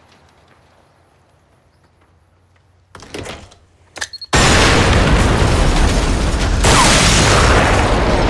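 A camper door is rattled open with a sharp click about four seconds in, and the camper instantly goes up in a huge explosion that stays loud to the end.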